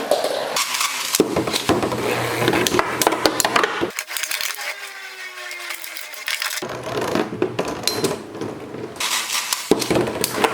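Infinity Nado battle spinning tops clashing: rapid clacks, knocks and rattling scrapes. About four seconds in the clashing drops away for a couple of seconds, leaving a faint whir that slowly falls in pitch, then the clattering starts again.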